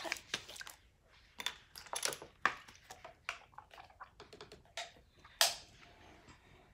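Fingers tapping and clicking on an HP laptop's keyboard and touchpad: a run of short, irregular taps, the loudest about five seconds in.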